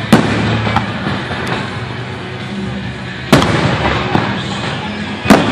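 Aerial firework shells bursting: a sharp bang just after the start, another about three seconds in and a third near the end, with a few smaller cracks in between.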